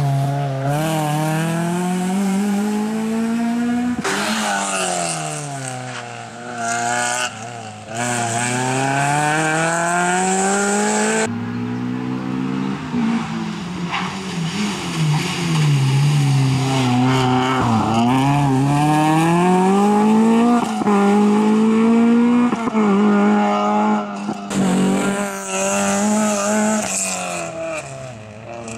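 Peugeot 306 rally car's engine driven hard. Its note climbs steadily through the revs, then drops sharply as it shifts or lifts for a chicane, over and over. The sound breaks off and jumps abruptly several times.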